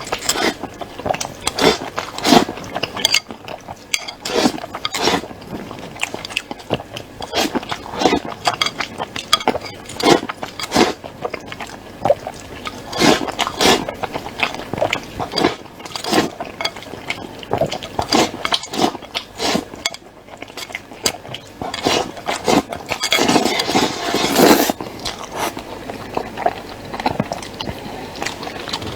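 Close-miked eating of rice mixed with stew broth: wet chewing and biting with many short smacks and clicks, and a spoon scraping and knocking against the bowl. About 23 seconds in there is a denser stretch of noise lasting a couple of seconds.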